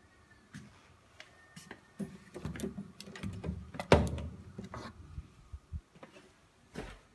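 Apartment front door being opened: a run of clicks and rattles starting about two seconds in, with a loud clunk about four seconds in as the door swings open, then a few lighter knocks.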